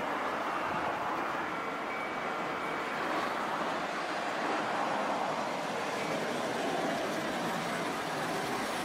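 Tosaden 600-series tram, car 612, running in along the street track, its steady rolling noise mixed with city traffic.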